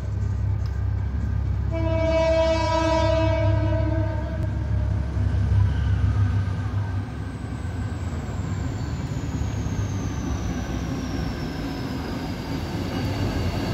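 GM GT22CW diesel locomotive sounding its horn in one blast of about a second and a half, a couple of seconds in, over the steady low rumble of its diesel engine as it approaches.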